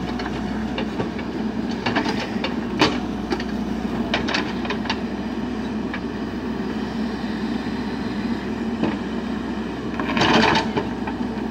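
JCB backhoe loader's diesel engine running steadily as the backhoe arm handles a concrete pipe, with scattered clanks and knocks. About ten seconds in comes a louder, half-second burst of rattling.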